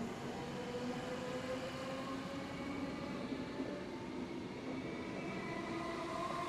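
Suburban electric multiple-unit train moving off along the platform. Its traction motors give a whine of several tones that rises slowly in pitch as it gathers speed, over the steady run of the wheels on the rails.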